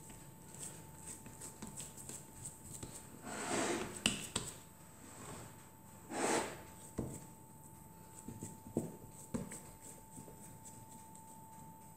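Faint hand-handling sounds as soft mashed-potato mixture is pressed and patted into a ceramic pie dish: two brief swishes a few seconds apart and a few light knocks, over a faint steady tone.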